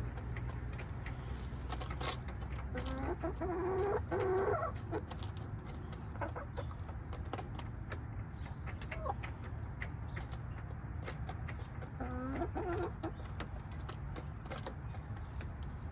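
Backyard chicken calling in two drawn-out bouts, one a few seconds in and another about three-quarters of the way through.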